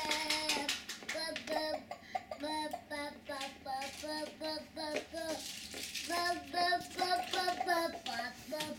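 A wheeled pull-along toy chicken playing a children's song in a childlike singing voice: a simple tune of steady held notes that step up and down, with light clicks mixed in.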